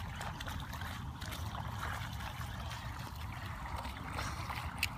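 Shallow standing floodwater on a grass lawn sloshing and trickling as bare feet wade and step through it, with a few sharp splashes near the end, over a low steady rumble.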